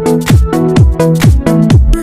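Electronic dance music with a steady four-on-the-floor kick drum at about two beats a second, sustained synth chords and bright hi-hats.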